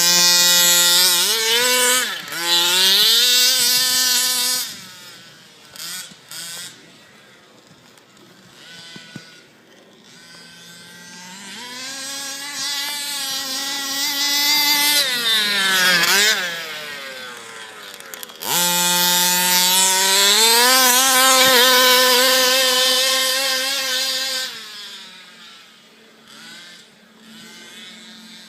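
Small two-stroke engine of a 1/5-scale HPI Baja RC car revving high in three long spells, its pitch climbing and falling, dropping back to a quieter low hum in between.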